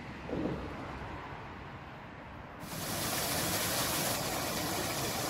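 Steady outdoor background noise with a low rumble. About two and a half seconds in it switches abruptly to a louder, brighter, even hiss.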